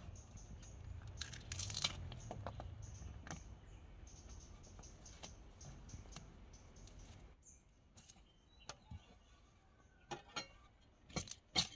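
Bark and slivers being pared and torn off a freshly sawn wooden blank: scattered scraping and tearing with small clicks, sparser and fainter in the last few seconds.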